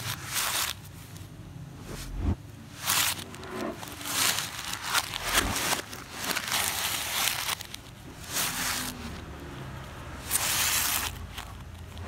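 Gift-wrapping paper and bubble wrap rustling and tearing, in a series of short bursts as the package is handled.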